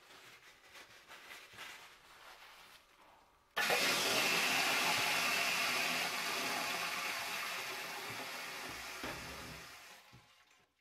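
A toilet flushing: a sudden rush of water about three and a half seconds in that slowly fades over several seconds.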